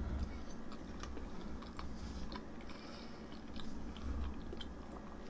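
A person chewing a mouthful of apple pie with a flaky crust: quiet chewing with faint, scattered small clicks.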